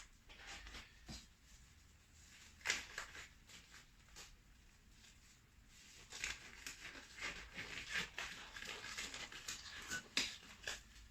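Faint rustling and several sharp little clicks and snaps of rubber gloves being pulled on and handled.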